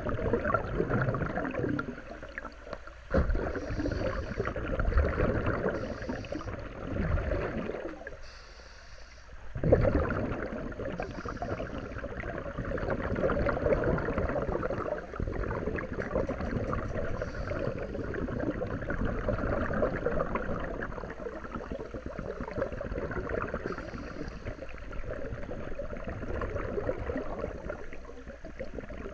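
Scuba regulator exhaust heard underwater: exhaled air bubbling and gurgling out in surges, with short lulls between breaths and a sudden loud burst about ten seconds in.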